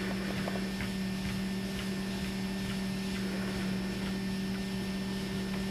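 Motorised treadmill running with a steady low hum, a few faint ticks over it.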